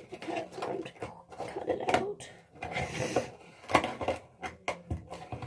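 Irregular clicks and scrapes of hands struggling to pry open a stubborn baking soda container.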